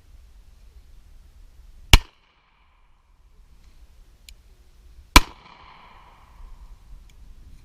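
Two handgun shots about three seconds apart, each followed by a short echo.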